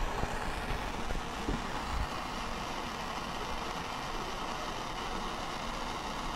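Propane hand torch burning with a steady hiss, with a couple of soft low bumps about one and a half and two seconds in as the hot branding iron is set against the boot leather.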